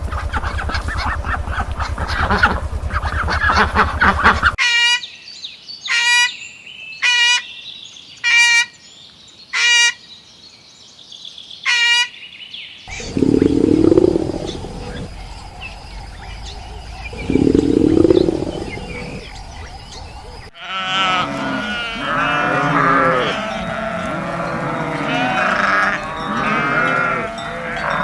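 Farm animals calling in a series of separate clips: first six short, evenly spaced pitched calls, then two low calls, then many animals calling over one another near the end.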